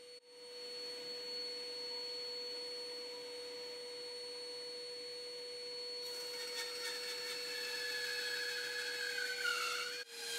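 Metabo BAS 261 Precision bandsaw, an induction-motor machine, running with a steady hum and whine while resawing a 2x4 with its factory blade. The cutting noise builds from about six seconds in, and its pitch sags near the end as the saw struggles in the cut.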